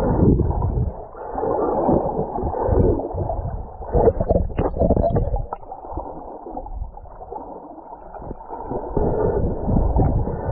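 Muffled sea water sloshing and gurgling around a GoPro action camera as it moves through the water, in irregular swells with a few sharp splashes about four to five seconds in.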